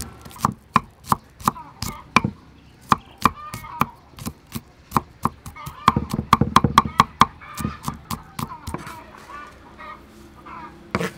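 Cleaver chopping garlic cloves on a thick wooden chopping block: sharp knocks, spaced at first, then a fast run of about five chops a second around the middle.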